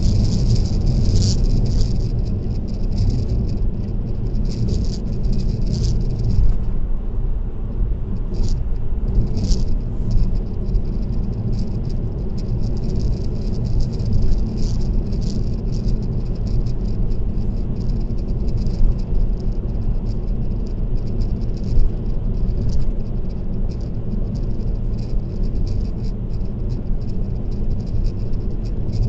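Steady low road and tyre rumble of a car at expressway speed, heard from inside the car, with a rapid, irregular rattle on top, heaviest in the first six seconds.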